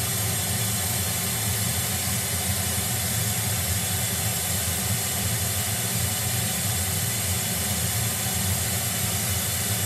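Pink-noise test signal played through a car's second speaker set for an RTA frequency-response measurement: a steady, even full-range hiss.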